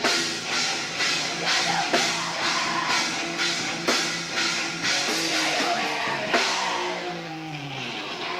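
Live rock band playing a heavy, punk-leaning song: drum kit keeping a steady beat of about two hits a second under electric guitar, with the guitar notes sliding down near the end.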